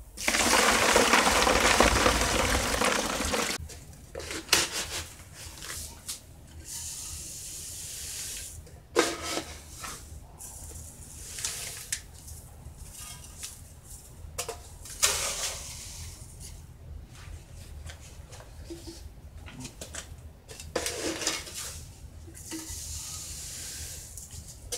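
Water pouring in a heavy stream from one plastic bucket into another for about three and a half seconds. After that come scattered knocks and rustles of plastic containers being handled.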